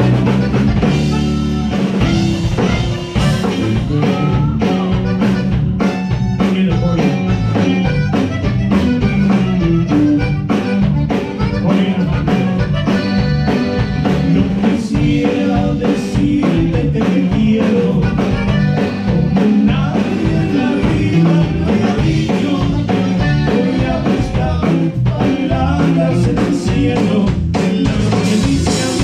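Live band playing a song through the PA at a sound check, with drum kit and guitar, kicking in at full volume right at the start.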